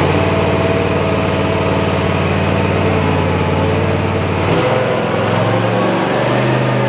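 Cub Cadet Ultima ZT1 zero-turn mower's gasoline engine running steadily at half throttle, just after being started. About four and a half seconds in, its pitch shifts slightly higher as the engine speed changes.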